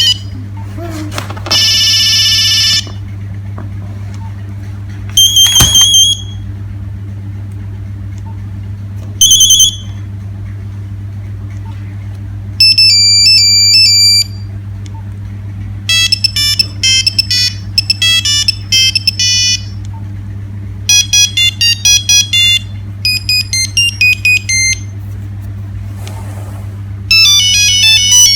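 Nokia 3610 mobile phone playing its built-in ringtones and alert tones one after another, each a short beeping tune played one note at a time. They run from a single held beep and a couple of quick triple beeps to melodies of a few seconds, with pauses between them, over a steady low hum.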